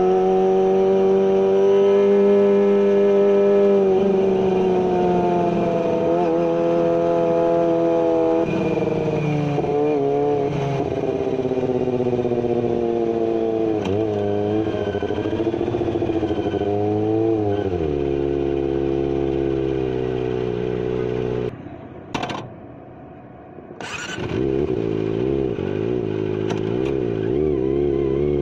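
Kawasaki ZX-25R's 250cc inline-four running through a GPR carbon full-system exhaust with no dB killer, its revs holding high, then wavering up and down. About 22 seconds in the engine note drops away for a moment, with two sharp clicks, then picks up again and rises.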